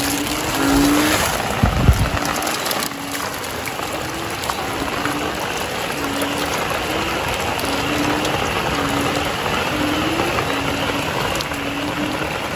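Banded bullfrogs calling in a chorus after heavy rain: short, deep, mooing notes repeated about once a second over a steady hiss of rain and water. A couple of low thumps sound about two seconds in.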